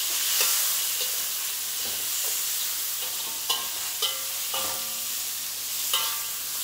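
Beef, shellfish and fish balls sizzling in a hot steel wok as a metal spatula stirs them. The spatula strikes the wok now and then with sharp ringing clanks.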